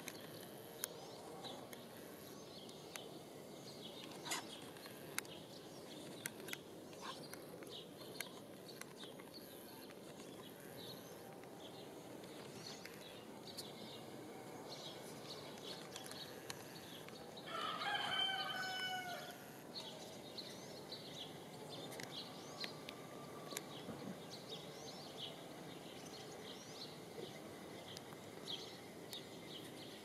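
Barn swallows perched on overhead wires twittering in short high chirps throughout. A rooster crows once a little past halfway, the loudest sound.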